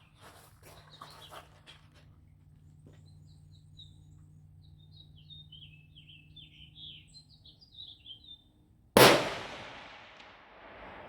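A single shot from a 16-inch Remington 700 Tactical .308 rifle about nine seconds in, with a long echo that dies away over about two seconds. Before it, a small bird sings a quick string of high chirps.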